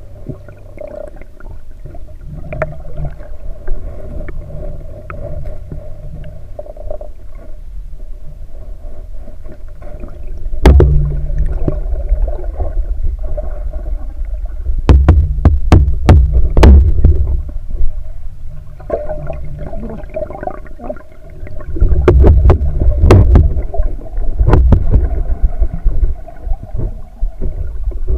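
Muffled underwater rumble and gurgling of river water moving around a submerged camera, with clusters of sharp knocks and clicks: the camera being bumped and handled as it moves through the water.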